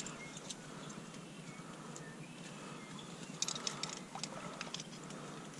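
Quiet wading and handling among dry marsh reeds: soft water movement and rustling, with a sharp click at the start and a short cluster of small clicks about three and a half seconds in.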